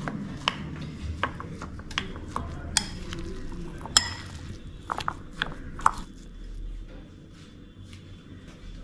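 Spoon or utensil clinking and knocking against a bowl while the minced-chicken burger mixture is mixed: a dozen or so irregular sharp clicks that thin out after about six seconds.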